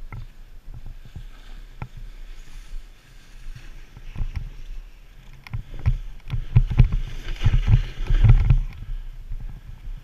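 Snowboard sliding and scraping over snow, with a low rumble and many short knocks from bumps in the run. It gets louder and rougher about six seconds in, with a hiss of snow over the knocking.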